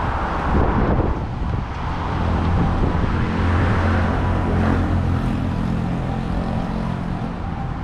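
Road traffic: a motor vehicle's engine running close by with a steady low hum that cuts off a little after five seconds in, over a continuous hiss of passing traffic.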